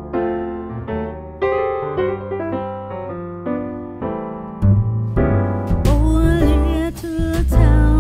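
Background music: a piano intro of single notes and chords, joined about halfway through by heavy bass and drums, and then a sung vocal line near the end.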